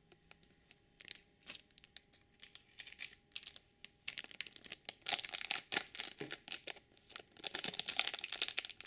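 Crinkly plastic packaging being handled and torn open to get at a hidden Shopkins toy: a few scattered rustles and clicks at first, then dense crackling from about halfway in.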